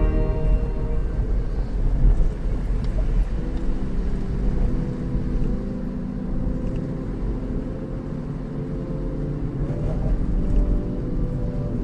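Car interior noise while driving on a wet road: a steady low road-and-engine rumble, with the engine's pitch rising briefly around the middle and again near the end as the car speeds up.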